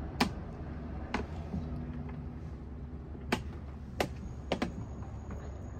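A metal spoon clinking against a glass dish while chopped fish and shrimp ceviche is stirred. There are a handful of sharp clicks at irregular intervals, two in quick succession near the end, over a steady low hum.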